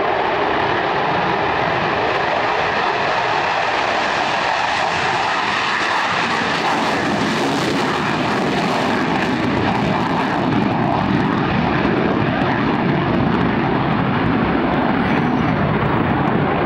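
F-16D fighter's single jet engine at high power, a loud steady roar as the jet passes and climbs away; the hiss is brightest about halfway through.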